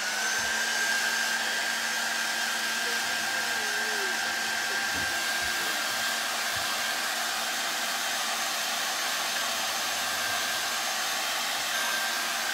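Handheld hair dryer running steadily: a rush of air with a high, steady whine over a lower hum. It comes on and spins up just at the start. It is blowing on wet ink on a silk-screen transfer to dry it.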